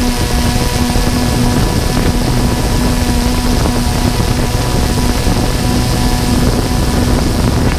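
DJI Phantom 2 quadcopter's motors and propellers running in flight, a steady whine over a heavy low rumble of prop wash and wind on the onboard GoPro's microphone.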